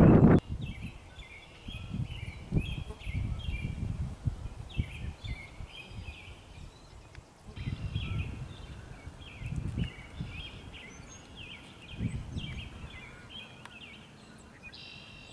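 Songbirds chirping in quick repeated phrases, with wind gusting against the microphone in low puffs. It opens with a brief loud rush of wind that cuts off after about half a second.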